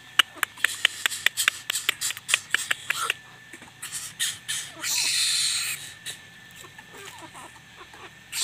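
Young greater coucals at close range: a rapid run of sharp clicks, about five a second for the first three seconds, then a few short calls. About five seconds in comes a harsh, hissing rasp lasting nearly a second.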